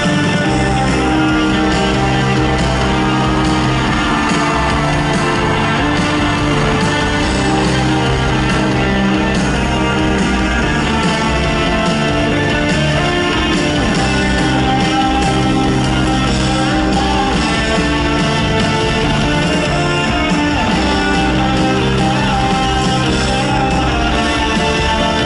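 Rock band playing live: electric guitar, bass and drums with a lead vocal, steady and loud throughout.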